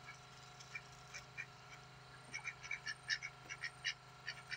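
Domestic ducks giving short, quick quacking calls: a few scattered at first, then a rapid run of them in the second half.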